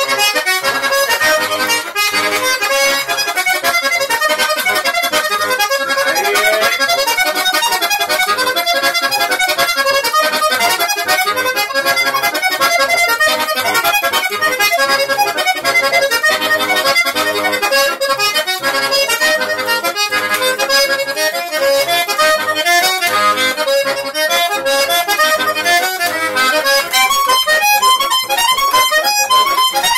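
Button accordion played solo: a quick run of melody notes over a steady, even bass rhythm, with no singing.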